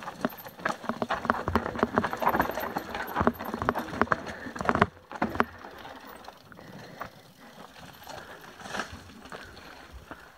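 Mountain bike clattering over a rocky, rooty trail: tyres crunching on loose stones, with fast, irregular knocks and rattles from the bike. It drops suddenly to a quieter, sparser rattle about five seconds in.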